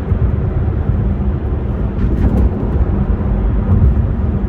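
Car interior noise while driving: a steady low rumble of engine and road noise heard from inside the cabin.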